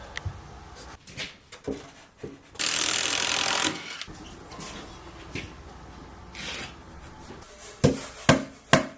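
Carpentry work on wooden framing lumber: scattered knocks and rubbing, a loud rush of noise lasting about a second a few seconds in, and sharp hammer blows on wood about twice a second near the end.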